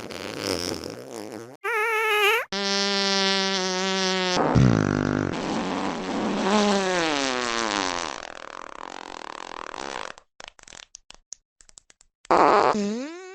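A run of fart sounds, one after another: a rough, noisy one, then pitched ones, one warbling, one steady and one falling in pitch, then a sputtering stretch of short pops, and a wavering pitched one near the end.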